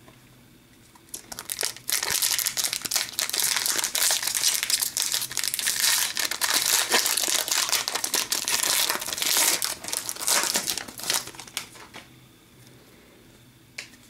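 The foil wrapper of a 2014-15 Upper Deck Series 1 hockey card pack crinkling as it is handled and torn open by hand. The crinkling starts about a second in and dies down near the end.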